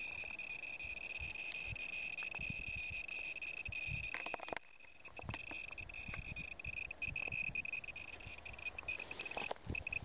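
Gamma Scout Geiger counter sounding a steady high-pitched alarm beep over pitchblende: the raised radiation of uranium ore, with scattered clicks underneath. The tone breaks off briefly a little before halfway and again near the end.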